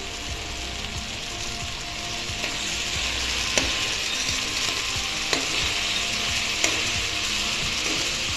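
Mixed vegetables sizzling as they fry in an open pressure cooker, stirred with a steel spoon that clinks against the pot a few times. The sizzle grows louder about two seconds in as the stirring begins.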